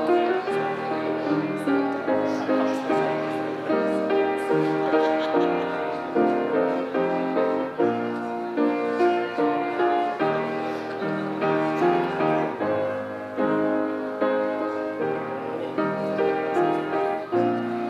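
Instrumental piano music: a continuous run of notes and chords.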